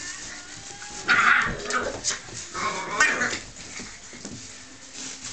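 Puppies play-fighting with an adult Finnish Spitz: two high-pitched whining yelps, a short one about a second in and a longer one near three seconds, amid soft scuffling.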